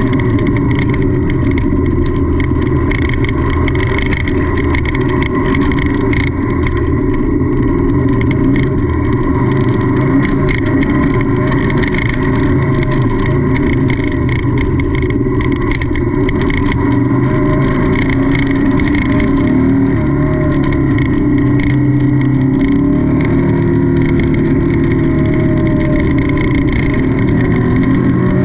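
Off-road race car engine running hard at race pace, heard from on board, with a constant high clatter over the engine. Its pitch rises and falls a few times near the end as the driver comes on and off the throttle.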